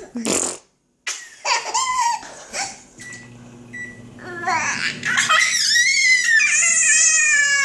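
A sharp sneeze at the very start, then a baby laughing: short choppy bursts of laughter, then a long, high-pitched squealing laugh that carries on to the end.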